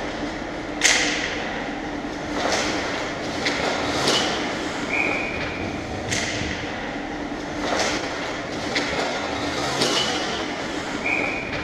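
Ice hockey sticks and puck cracking against each other and the goal during play around the net: sharp, separate cracks every second or two, the loudest about a second in, over a steady arena hum.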